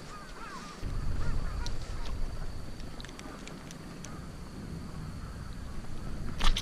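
Handling noise as a caught bigfin reef squid is spiked with a squid pick on a concrete pier: small scattered clicks and rustles over a low rumble, with one sharp louder click near the end. A few faint short squeaky calls sound in the first second.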